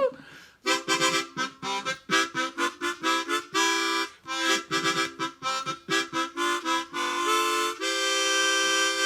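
A short, lively tune on a reed instrument: a quick run of short chords, then one long held chord near the end.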